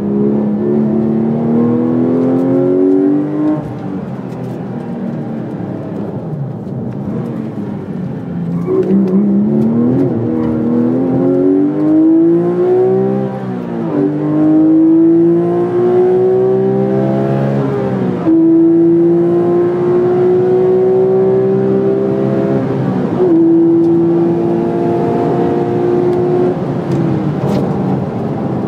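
Porsche 911 (997) GT3 RS 4.0's naturally aspirated 4.0-litre flat-six, heard from inside the cabin. It eases off early on, then accelerates hard through the gears, the pitch climbing in each gear and dropping sharply at three upshifts, before the driver lifts off near the end.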